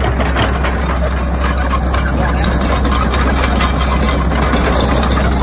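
Caterpillar E120B tracked excavator's diesel engine running steadily at working speed, with scattered metallic clanks and squeaks from the machine as it works.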